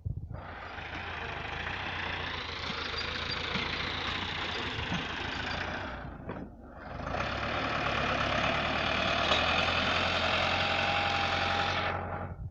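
Tractor engine running steadily, with a brief drop in sound a little past halfway before it carries on.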